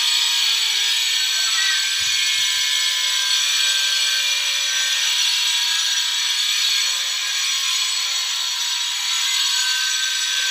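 A loud, steady, high-pitched buzzing drone without a break, with a couple of faint low knocks about two seconds in.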